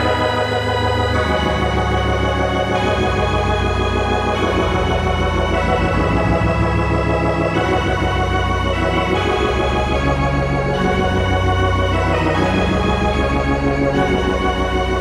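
Dungeon synth music: sustained organ-like keyboard chords that change every second or two at an even volume.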